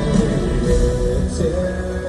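Instrumental passage of a live pop ballad, with long held notes over a steady bass.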